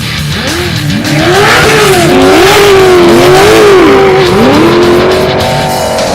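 Off-road vehicle engine revving hard, its pitch swinging up and down several times as the throttle is worked, and held high for a moment in the middle. Heavy metal music plays underneath.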